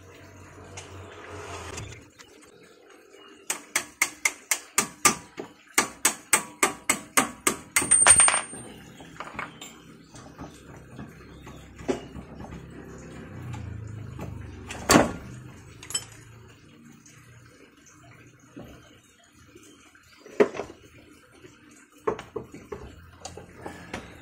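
Hand wrench clicking quickly and evenly on the front shock absorber's mounting bolts for several seconds, with a brief high metallic ring at the end of the run. Then come scattered single metal knocks and clanks as the bolts and strut are worked loose, the loudest about halfway through.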